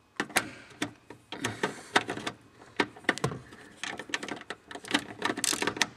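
Ratchet and 7 mm socket clicking in short, irregular runs while loosening the parking brake release bolt under the dashboard, with small knocks of the tool against the metal and plastic.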